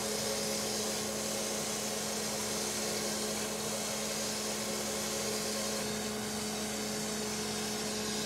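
Crankshaft grinding machine running steadily: a constant motor hum with a steady low tone under an even hiss.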